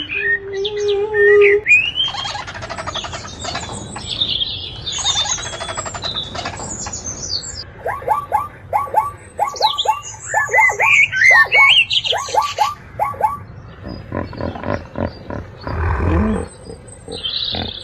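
Birds chirping and calling: many short, high chirps and sweeps. Midway there is a quick run of about ten repeated short calls, and a brief lower, rougher animal sound comes shortly before the end.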